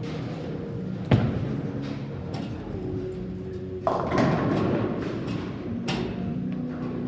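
A bowling ball lands on the lane with a loud thud about a second in, and nearly three seconds later pins crash and clatter, fading over about a second. Steady background music plays underneath.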